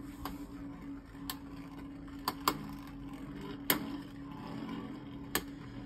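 Two small Beyblade Burst spinning tops whirring steadily on a clear plastic stadium floor, with six sharp clicks as they collide.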